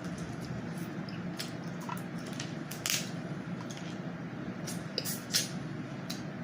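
Close-miked eating of a seafood boil: wet chewing and smacking with scattered sharp clicks and cracks, over a steady low hum.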